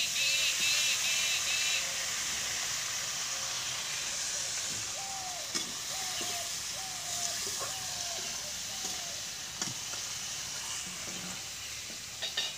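Outdoor ambience: a steady high hiss, with birds chirping in the first two seconds, then a run of short falling calls repeating about every half second in the middle, and a few sharp clicks.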